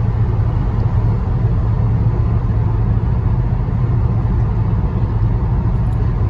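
Car driving at highway speed, heard from inside the cabin: a steady low drone of engine and tyre road noise.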